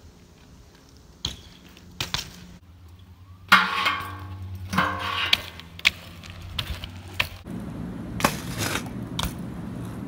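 BMX bike riding on concrete: tyres rolling and a series of sharp clacks and knocks as the bike lands and strikes ledges and steps. The loudest comes about three and a half seconds in.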